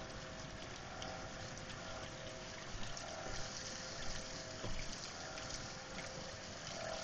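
Steady rain falling, an even hiss with a few light taps.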